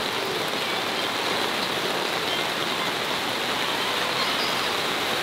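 Steady rain falling, an even hiss of rain without distinct drops or breaks.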